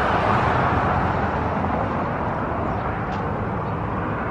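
Steady rushing drone of a passing jet airliner, slowly fading, over road traffic.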